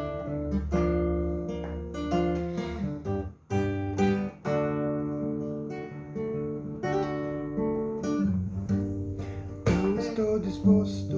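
Acoustic guitar strummed, playing the song's intro chords, D, B-flat and G.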